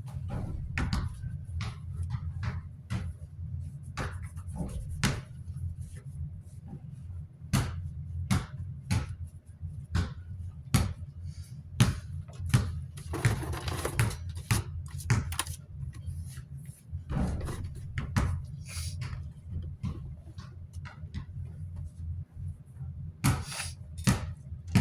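Desk-fan parts being handled and pressed together: irregular clicks and knocks throughout, with two longer rubbing sounds in the middle, over a steady low hum.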